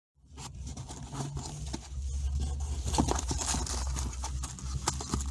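A postal parcel being torn open and handled: crinkling, rustling packaging with scattered clicks over a low rumble.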